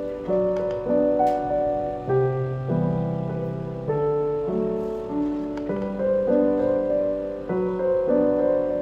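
Gentle background piano music, notes and chords struck about twice a second, each fading before the next.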